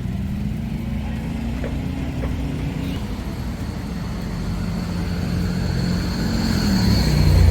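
A motor vehicle's engine running with a steady low hum that grows louder toward the end, joined near the end by a high whine.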